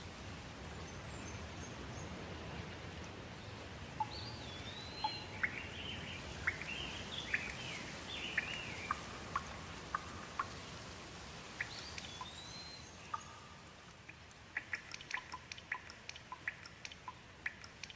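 Rainforest ambience: a steady hiss of rain, with birds calling in whistled, sliding notes from about four seconds in. Near the end the hiss eases and a quick run of short, sharp clicks takes over.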